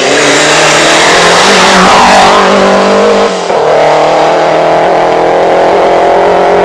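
Competition car's engine revving hard as it accelerates out of a hairpin and climbs away, with a brief break in the engine note about three seconds in before it runs on at high revs.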